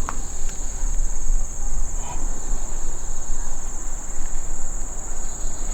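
A steady chorus of insects, one continuous high-pitched shrill drone with a fine rapid pulse, over a low rumble.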